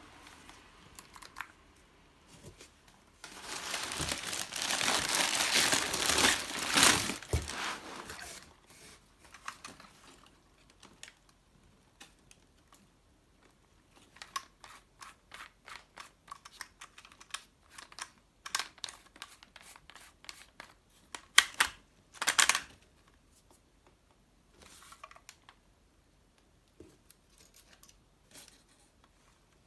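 Plastic or paper packaging crinkling and tearing for about five seconds, followed by a run of small clicks and knocks from handling.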